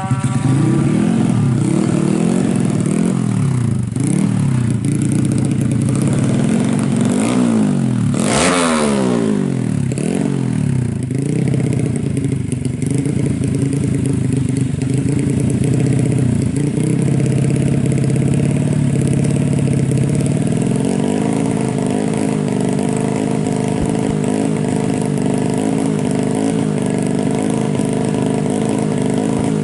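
Motorcycle engines running: a steady engine note throughout, with other bikes' pitch swelling and falling as they go by. One loud close pass-by comes about eight seconds in.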